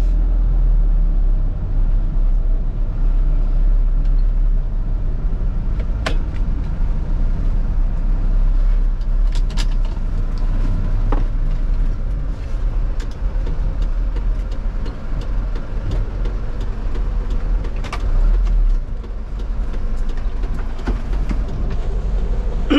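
Fuso Canter light truck's diesel engine running with a low, steady rumble heard from inside the cab as the truck rolls slowly. A few sharp clicks sound over it.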